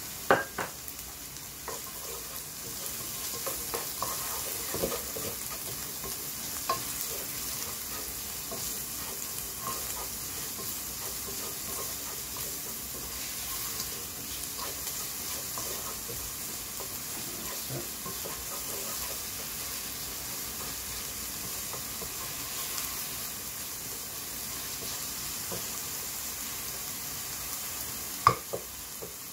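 Diced onion sizzling in olive oil in a frying pan while a wooden spoon stirs it, with small scraping clicks of the spoon on the pan. A sharp knock comes just after the start and another near the end.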